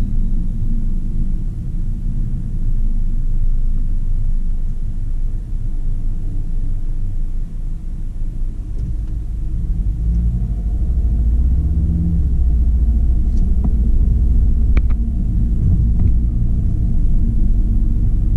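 Low rumble of a car driving, heard from inside the cabin: road and engine noise that grows a little louder about halfway through, with a few faint clicks.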